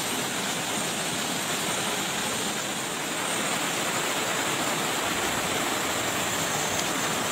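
Shallow rocky stream rushing over stones: a steady, even roar of flowing water.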